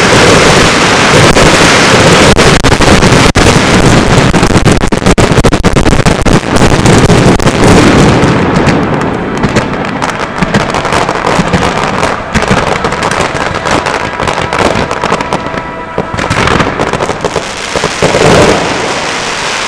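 Fireworks display: a dense barrage of crackling and rapid bangs, very loud, that thins out and drops in level about halfway through.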